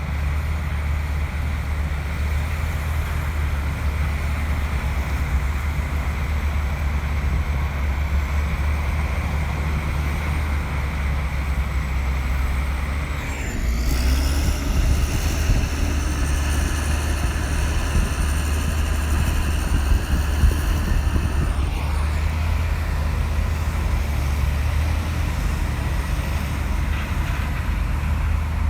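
Komatsu bulldozer's diesel engine running with a steady low drone and a faint high whine. About halfway through it dips briefly, then runs louder and higher for about eight seconds before settling back.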